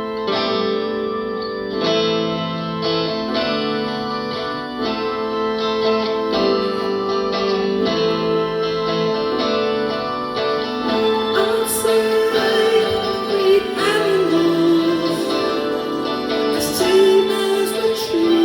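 Live band music: an instrumental passage of a soft rock song, with plucked string chords over sustained notes. A wavering lead melody comes in about halfway through.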